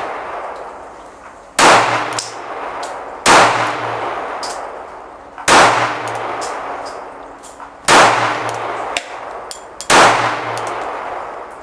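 Kel-tec PF9 9mm subcompact pistol firing five single shots about two seconds apart. Each shot rings out in a long echo under the range's metal roof.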